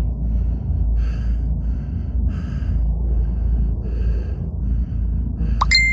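Quick, heavy breathing of a frightened person, short puffs coming about every half second to second, over a steady low rumble on the phone microphone. A brief high squeak sounds near the end.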